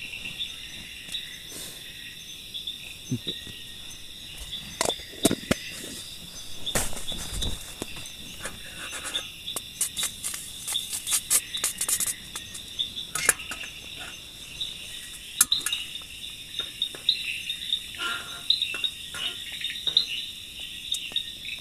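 Crickets and other night insects chirring steadily, with scattered short clicks, crackles and knocks close by.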